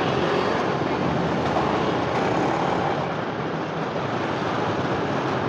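Steady street traffic noise: motorbikes and cars running past on the road, a continuous even rumble.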